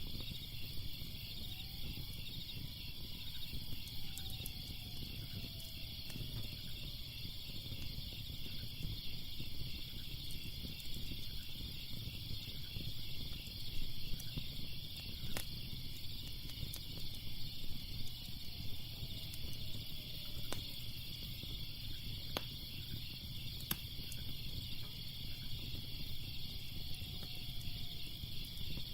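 Crickets chirping steadily over the low rumble of a crackling fire, with a few sharp pops from the fire about halfway through. A few faint falling tones drift in and out.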